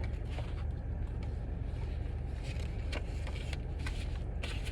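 Steady low background hum with a few faint light clicks.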